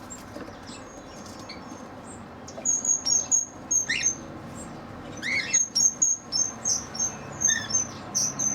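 Small aviary birds chirping: a run of short, high chirps begins about two and a half seconds in and keeps repeating, with a few lower, sliding calls mixed in.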